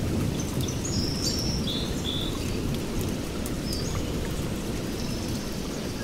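Nature ambience: a steady low rushing noise, with short high bird chirps scattered over it, most of them in the first two seconds.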